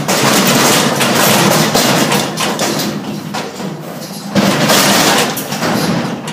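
Steel livestock squeeze chute clanging and rattling as a bison is driven into it and caught in the headgate: a sustained loud clatter of metal knocks, with a second loud burst about four and a half seconds in.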